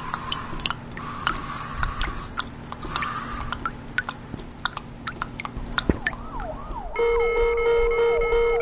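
Rapid scattered clicks and drips over a faint steady hum; about seven seconds in, a loud steady electronic tone starts, with repeated falling swoops like a siren.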